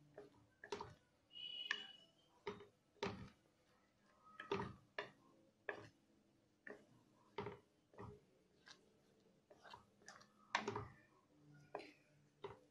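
Wooden spatula stirring thick semolina halwa in a metal kadai, knocking and scraping against the pan in faint, irregular clicks about one or two a second.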